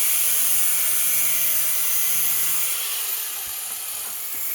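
Small high-speed rotary grinder with a cutoff wheel cutting into metal, a steady high-pitched whine and hiss that eases somewhat near the end.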